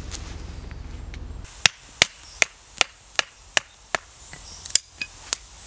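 Seasoned firewood being split down into kindling by hand: about ten sharp wooden knocks, evenly spaced at two or three a second. Before them, a low rumble cuts off suddenly about a second and a half in.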